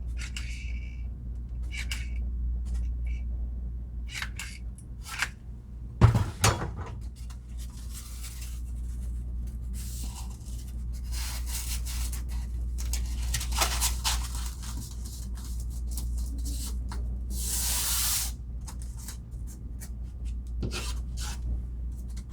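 Hands applying adhesive to a Styrofoam ceiling tile and fitting it in place: scattered clicks and taps, a sharp knock about six seconds in, and several scraping, hissing rubs of about a second each, over a steady low hum.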